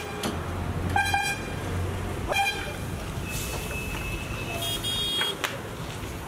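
Vehicle horns honking in road traffic: several short toots, about a second in, briefly near two and a half seconds and a higher one near five seconds, over a low steady hum.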